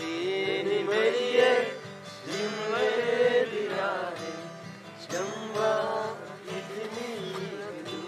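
A song: a voice singing drawn-out phrases over acoustic guitar accompaniment.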